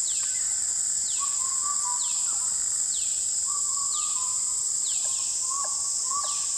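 Dholes whistling: short, clear whistles on nearly one pitch, starting about a second in and coming in a quicker run of about two a second in the second half. Under them runs a steady high hiss, with a falling chirp repeating about once a second.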